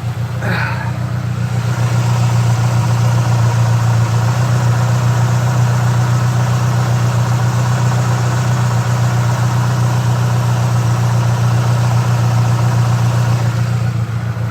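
Saab Aero engine idling rough with a steady low drone, getting louder over the first couple of seconds and then holding even. It is running after a head-gasket job while still mixing oil and coolant and burning oil, with one piston damaged.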